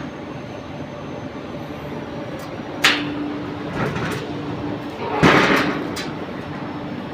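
Steady industrial plant noise with a low hum, broken by a sharp knock about three seconds in and a louder, longer scraping clatter a little past five seconds.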